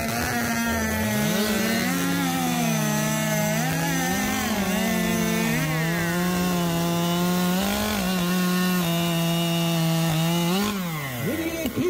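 Two-stroke chainsaw cutting through a log at full throttle, its engine note dipping and recovering again and again as the bar is pushed into the wood. The saw's AutoTune carburettor needs to be in the wood to set itself. Near the end the engine note falls away as the saw comes out of the cut.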